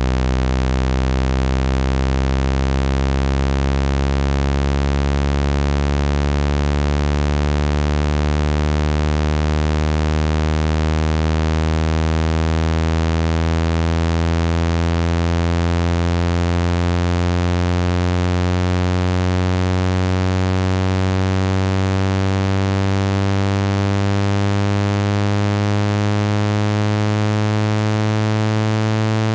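Synthesized low buzzing water-eject tone, rich in overtones, gliding slowly upward in pitch; it is meant to vibrate a phone speaker to push trapped water out.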